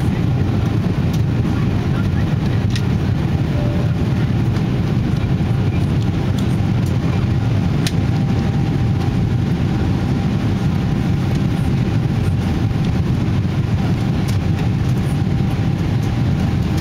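Boeing 777-300ER in flight after takeoff: a steady low rumble of its GE90 engines and the airflow, with a few faint clicks.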